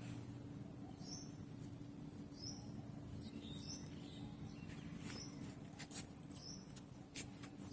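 A bird repeating a short, high chirp about every second and a half, faint, over a steady low hum, with a few sharp clicks or taps in the second half.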